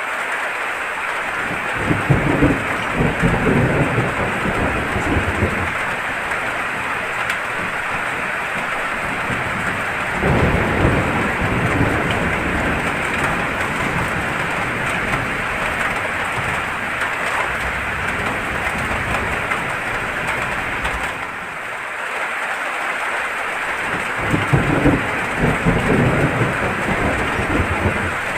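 Steady heavy rain with a continuous hiss. Low thunder rumbles swell up three times: about two seconds in, about ten seconds in, and near the end.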